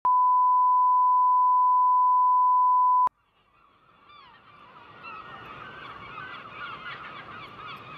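A steady test-tone beep holds for about three seconds and cuts off suddenly. After a brief silence, a flock of gulls calling fades in over a low hiss, growing louder toward the end.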